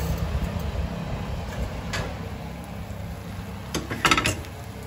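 Glass baking dish being taken off the oven rack and set down on the stovetop: a single knock about two seconds in, then a short clatter of glass near the end, over a steady low hum.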